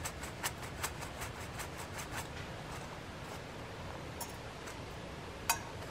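Crushed roasted coffee beans shaken and fingered in a small steel pan: light, quick ticks of bean fragments on metal, about five or six a second for the first two seconds, then softer rustling with a single tick near the end.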